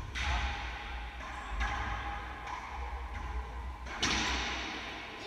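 Racquetball rally in an enclosed court: about five sharp cracks of racquets striking the ball and the ball hitting the walls, each followed by echoing reverberation. The loudest hit comes about four seconds in.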